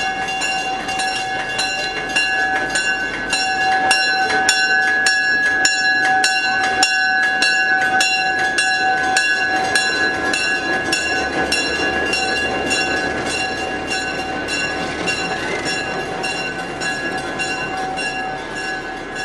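Diesel locomotive moving slowly with its bell ringing steadily, about two strikes a second, over the low running of the engine.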